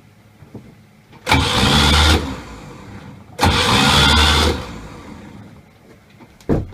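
Atomic 4 four-cylinder gasoline marine engine turned over twice by its starter, about a second each time, without firing. A short knock follows near the end.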